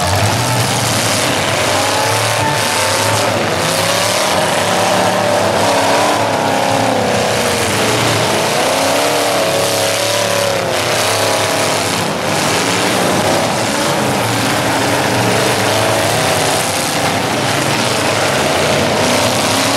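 Several demolition derby cars' engines revving hard, their pitch rising and falling as the cars push and ram one another, with a few sharp bangs of impacts.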